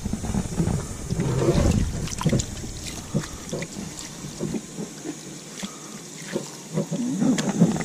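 Garden hose nozzle spraying water over raw bluefish fillets on a plastic cutting board, with splashing and scattered small knocks.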